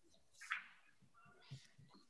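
Near silence: faint room tone, with one brief soft noise about half a second in.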